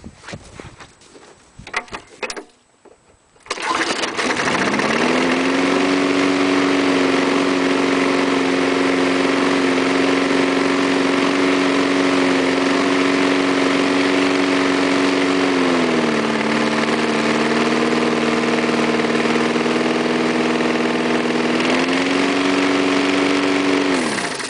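Murray push mower's small 3.75 hp engine pull-started on a cold day after three primer-bulb presses: it catches on the first pull about three and a half seconds in, revs up and runs steadily. Its speed drops about two-thirds of the way through, picks back up near the end, and the engine shuts off.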